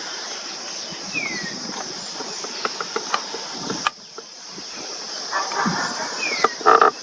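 Indian spot-billed duck calling, with harsh quacking bursts in the second half, the loudest just before the end. A steady high hiss runs underneath, and two short falling whistles come about a second in and again near the end.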